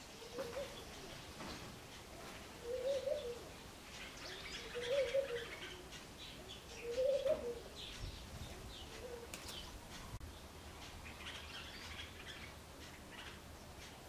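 Birdsong: a dove cooing, five low coos that rise and fall, about two seconds apart, the last one fainter, while small birds chirp and twitter higher up.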